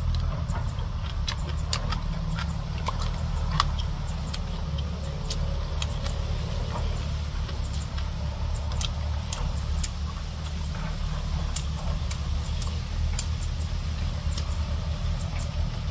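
Scattered light clicks and ticks of chopsticks and a spoon while eating, over a steady low rumble.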